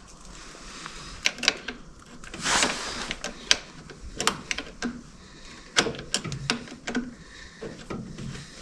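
Irregular metallic clicks and knocks from hand work on a tractor battery's cable connections, with a short scrape about two and a half seconds in.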